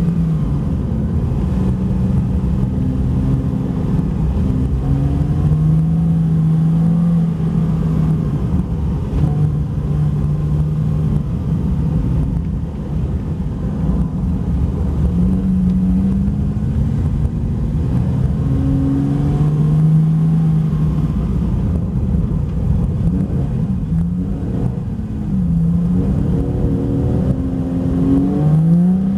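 Porsche 911 Carrera 4S (Type 991) flat-six engine rising and falling in revs as the car drifts on ice on studded tyres, over a steady low rumble from the tyres; the revs climb again near the end.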